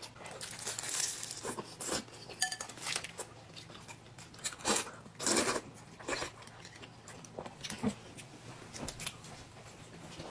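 Close-miked eating sounds: chewing and slurping, with the clink of a spoon and fork against dishes, one clink ringing briefly about two and a half seconds in.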